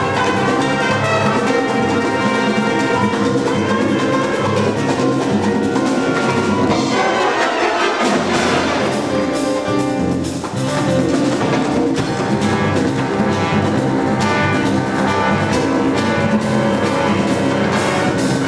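A high school jazz big band playing, with trumpets and trombones out in front of the saxophones and rhythm section.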